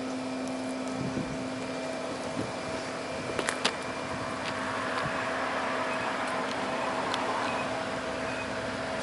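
Steady hum of a running machine, holding two constant tones, one low and one higher, over a faint hiss that grows a little in the middle. A few light clicks come about three and a half seconds in.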